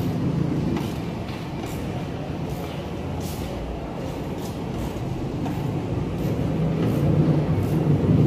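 A motor vehicle's engine running with a low, steady rumble that grows louder toward the end.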